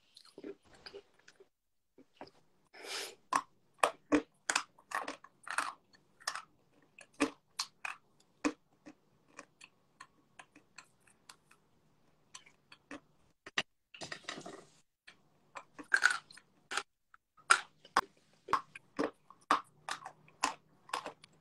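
Someone chewing lumps of dry blue Uzbek clay close to a phone microphone: an irregular string of sharp crunches, thinning out for a few seconds in the middle.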